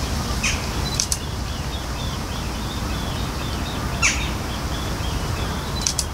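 Birds chirping and calling, a run of quick chirps with a few sharper calls about half a second in, around a second, and near four seconds, over a steady low rumble.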